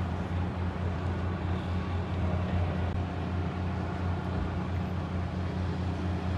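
Steady outdoor ambience by a harbour: an unbroken low rumble of distant traffic and boat engines with a hiss over it.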